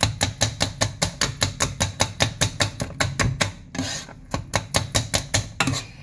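A whisk beating cooked jute leaves in a cooking pot, striking rapidly about six times a second, breaking off briefly about two-thirds of the way through, then going again. The leaves are being whisked down into a smooth palava sauce.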